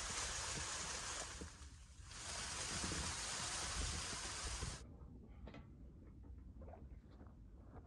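Leaves and branches of a feijoa bush rustling in two long spells as someone pushes in among them. The rustling cuts off suddenly about five seconds in, leaving quiet with a few faint light ticks.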